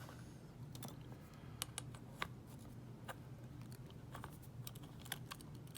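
Faint, irregular small metallic clicks and scratches of a pick wire working the levers inside a WEP Secure 5 lever padlock, over a low steady hum.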